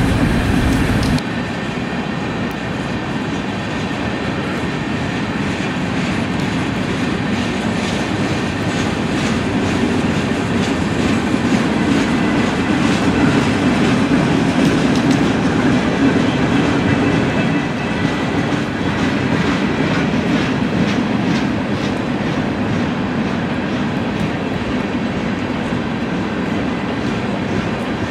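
Freight train cars, mostly tank cars, rolling past at steady speed: a continuous rumble with wheels clicking over rail joints.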